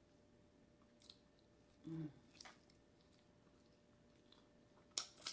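Quiet eating sounds: soft chewing and small clicks, with a short hum of voice about two seconds in and a few sharper clicks near the end.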